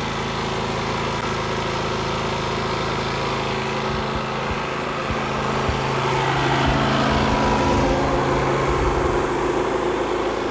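Predator 9500 inverter generator's 459cc engine running steadily under heavy electrical load. Its note shifts and grows a little louder about six seconds in.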